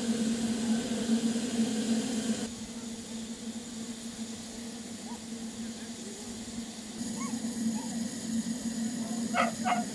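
Steam railway station sound, with narrow-gauge steam locomotives standing and moving slowly at the platform: a steady low hum throughout. Short chirping calls come from about seven seconds in, and two short sharp calls near the end.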